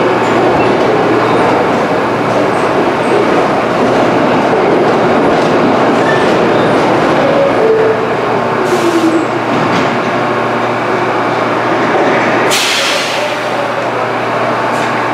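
New York City subway train moving through the station: a steady, loud run of wheels and motors with a low hum, some wavering whines, and two short hisses, the longer one near the end.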